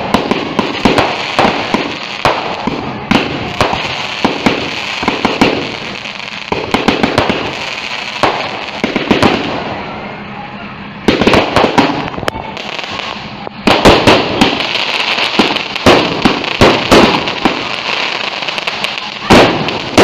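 Multi-shot fireworks cake firing in quick succession: a dense run of sharp pops and crackles over a steady hiss. The barrage grows louder about eleven seconds in and again a few seconds later.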